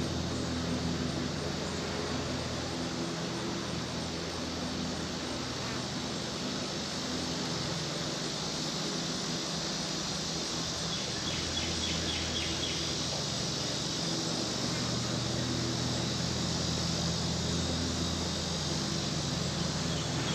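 Summer garden ambience: a steady buzz of insects and crickets, with a steady low hum underneath and faint rapid chirping about halfway through and near the end.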